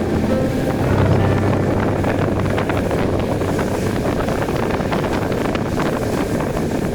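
Wind buffeting the microphone of a camera riding on a moving bicycle, a steady low rumble with scattered small rattling clicks.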